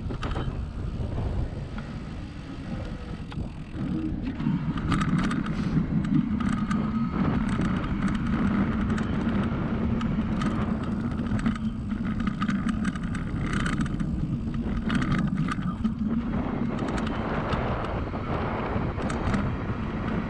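Riding noise from an e-cargo bike at about 20 km/h: wind buffeting the microphone and tyre noise, with a steady hum that gets louder about four seconds in. Through the middle, short rattling clicks come as the bike runs over block paving.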